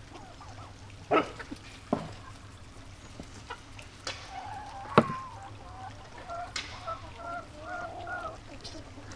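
Chickens clucking, with a drawn-out, wavering hen call through the second half. A few sharp knocks stand out, the loudest about five seconds in.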